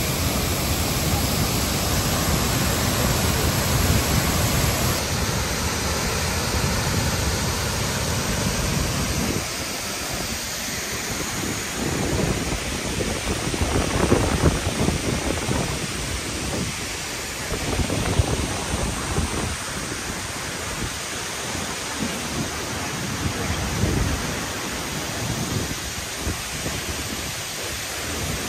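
Steady roar of a waterfall crashing into its pool. About nine seconds in the deep rumble drops away, leaving a thinner, uneven rush of water.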